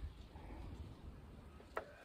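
Quiet close-up handling of a stripped solar cable as its strands are pushed into a connector's crimp pin, with a small click near the end.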